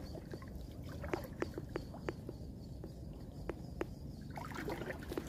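Faint, irregular clicks and ticks from a spinning rod and reel being worked during a retrieve, over a low steady rumble.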